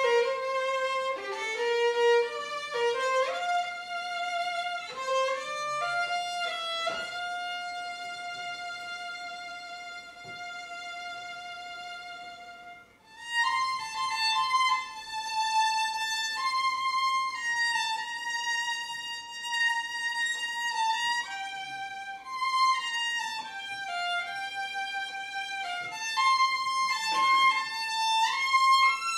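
A violin playing a slow melody. A long held note fades out about twelve seconds in, and after a brief break the melody comes back higher.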